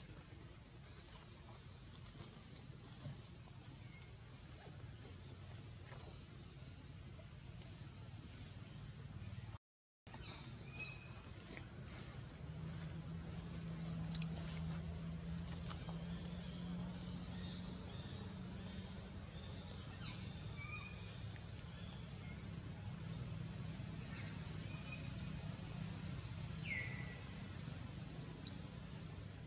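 Tropical forest ambience: a bird repeats a short high chirp about one and a half times a second, with a few other scattered bird notes over a low steady rumble. The sound drops out for a moment a third of the way through.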